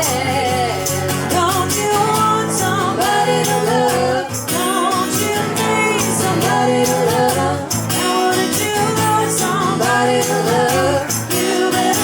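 A band playing a song: a sung vocal over guitar with a steady beat.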